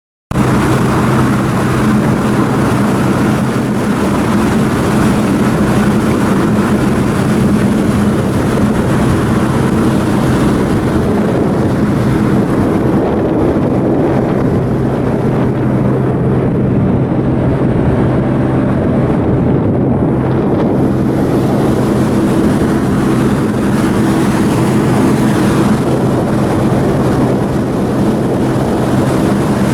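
Cargo ship's diesel engine running steadily: a loud, even drone with low steady tones over a broad rush of noise.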